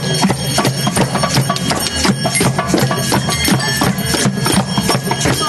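Children playing drums and other percussion instruments together, struck fast and irregularly, over a few steady held tones.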